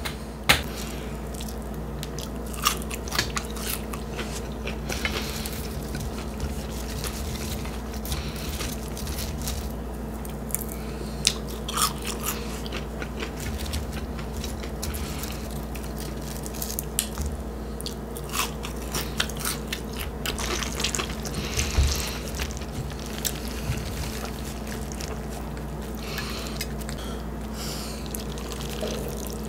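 Close-miked eating of a bacon cheeseburger and fries: repeated bites and chewing with sharp crunches and clicks, over a steady low hum.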